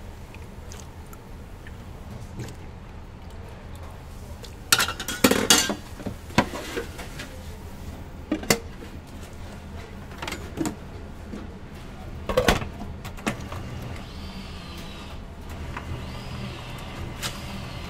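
Kitchen clatter of metal bowls and utensils while batter ingredients are handled: a run of sharp clanks and knocks, the loudest cluster about five seconds in and scattered ones after, over a steady low hum.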